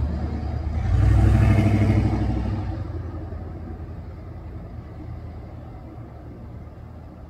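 A road vehicle passes nearby: engine and tyre noise swell to a peak about a second and a half in, then fade away slowly.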